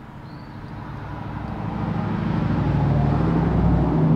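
A vehicle engine's low hum, growing steadily louder over about three seconds as it draws near, then holding.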